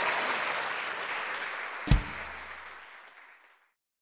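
Audience applause fading away, with a single sharp, deep boom about two seconds in.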